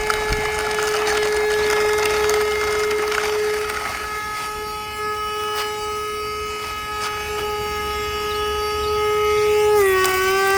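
Haimeec cordless stick vacuum's motor running with a steady high-pitched whine, dipping slightly in pitch near the end, with scattered faint ticks; the motor is still running after being clogged with sand, though it was said to have lost its suction.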